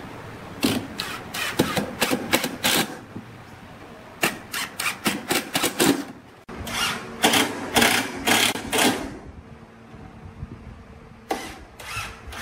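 Cordless impact driver hammering screws into pine joints, in several short runs of rapid clatter with pauses between them as each screw is set and driven.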